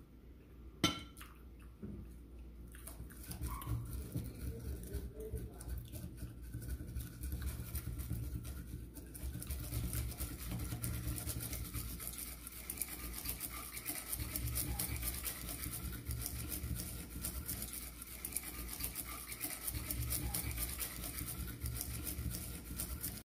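Close-miked chewing of a mouthful of food, a continuous wet, scratchy crunching. A single sharp clink comes about a second in.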